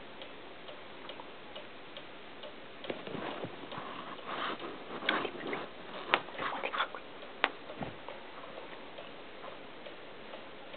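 White pet rodent grinding its teeth as it is stroked, making a run of soft rapid clicks (bruxing), a sign of a relaxed, content animal. Louder clicking and fur rustling come in the middle few seconds, with a few sharper clicks.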